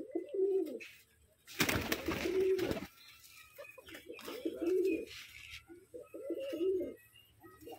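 Domestic pigeons cooing over and over, low gurgling coos in quick succession. About two seconds in there is a loud rustling burst, such as wings flapping among the feeding flock.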